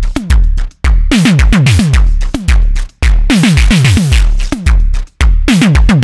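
Studio Electronics Midimini V30 analog synthesizer playing a synthesized drum pattern: deep kick-like thumps with quickly falling pitch, traded with noisy snare- and hi-hat-like hits in a steady, loud beat.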